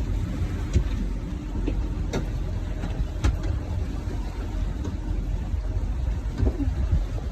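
Small tour boat's motor running with a steady low rumble, with a few sharp knocks about one, two and three seconds in.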